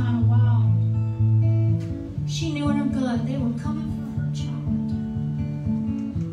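Acoustic guitar played live, strummed chords ringing on, with a woman's voice singing a few short phrases over it.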